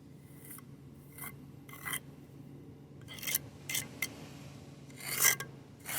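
A hand tool scraping on concrete in a series of short, irregular strokes, the loudest near the end.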